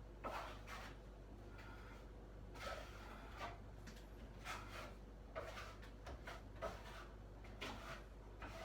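A filling knife scraping joint filler across a cracked ceiling, in a series of short, irregular strokes.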